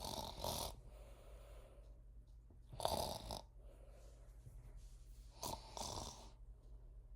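Loud snoring: three snores about two and a half to three seconds apart, each lasting under a second.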